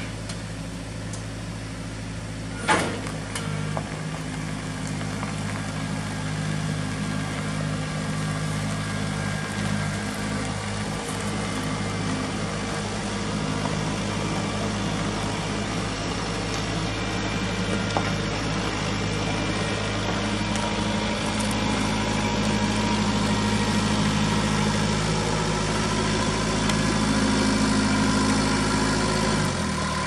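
Kubota tractor's diesel engine running steadily while towing the sawmill bedframe on a small trailer, slowly growing louder, with a single sharp knock about three seconds in. Just before the end the engine note drops as it is throttled back.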